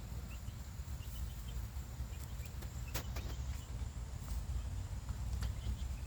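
Chickens feeding, with faint scattered peeps and clicks and one sharper click about three seconds in, over a steady low rumble.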